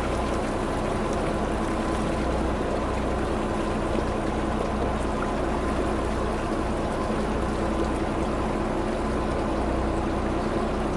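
Steady running noise aboard a fishing boat at sea: the boat's engine holding a low, even hum under water washing against the hull.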